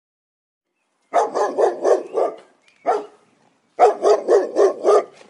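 Dog barking: a quick run of about five barks, a single bark, then another run of about five.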